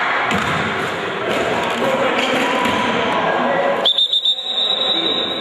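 Players' and spectators' voices echoing in a gym, then about four seconds in a referee's whistle: a few quick chirps running into one long, high, steady blast.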